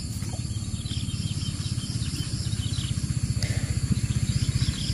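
Small engine running with a fast, even putter that grows slightly louder toward the end. Insects chirp over it in the high range.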